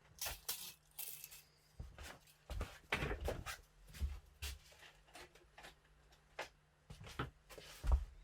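Irregular knocks, clicks and scraping of hands handling parts and tools on a workbench, with a faint steady hum underneath.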